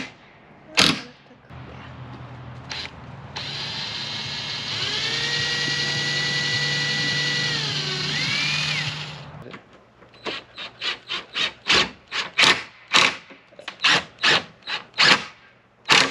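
Cordless drill driving screws into pine boards: the motor whines steadily for several seconds, dips in pitch as the screw seats, rises briefly and stops. A run of sharp clicks follows, two to three a second.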